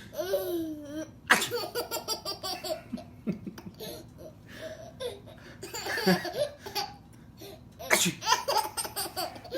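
A man sneezes loudly about a second in and a baby answers with a long run of rapid, bubbling laughs; a second sneeze near the end sets the baby laughing again.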